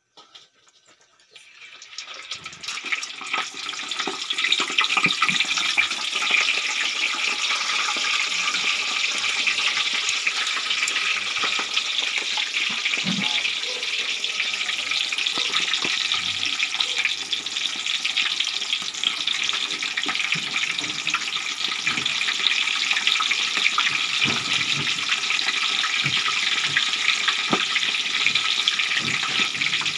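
Pork belly deep-frying in hot oil for bagnet: a dense sizzle that starts about a second in, builds over the next few seconds and then holds steady.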